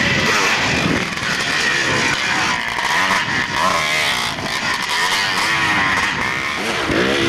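Dirt bike engines revving up and down as the bikes ride past on a dirt course, the pitch rising and falling with each throttle change and gear shift.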